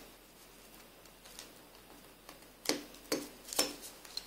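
Small sharp clicks as the Nokia Lumia 520's main board is prised free of its retaining clips: three clicks about half a second apart in the second half, and a lighter tick near the end.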